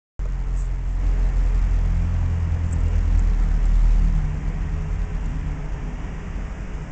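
A steady low rumble with a faint hum, swelling about three to four seconds in and easing a little after.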